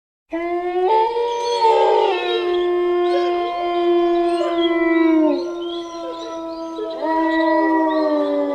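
Several wolves howling together in a chorus: long, held howls at different pitches overlap and slowly slide down, with a fresh howl rising in about seven seconds in.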